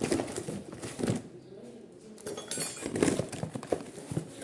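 Loose steel bolts, nuts and washers clinking and knocking together as they are handled, a few sharp clinks spread over several seconds.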